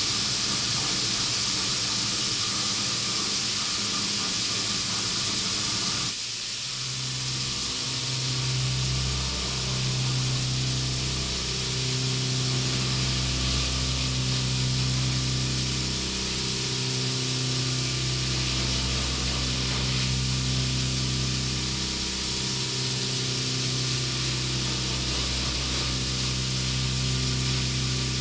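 CNC vertical mill cutting titanium with a 1/2-inch carbide end mill under flood coolant, over a steady hiss of coolant spray. The end mill ramps into the pocket, then roughs it: from about six seconds in, a strong low steady hum from the cut comes and goes in stretches of a few seconds as the passes change.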